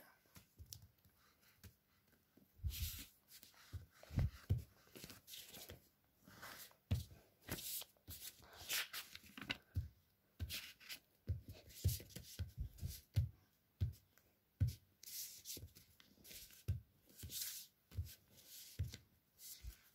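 Faint irregular scraping of a glue stick rubbed over a sheet of paper in short strokes, with paper rustling and soft knocks against the hard book underneath.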